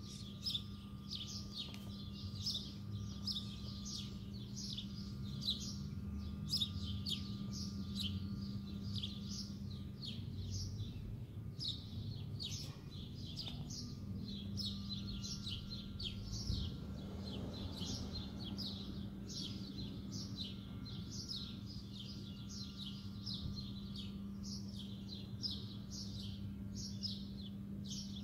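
A small bird chirping over and over, several short, high, falling chirps a second, over a steady low hum.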